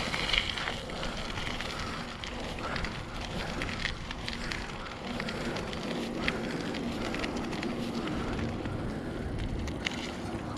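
Bicycle being ridden: steady tyre and road noise with scattered small clicks and rattles.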